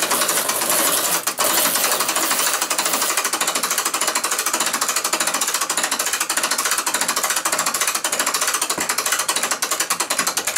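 Mainspring winder's ratchet clicking rapidly and evenly as its crank is turned, winding a loop-end clock mainspring tight onto the arbor.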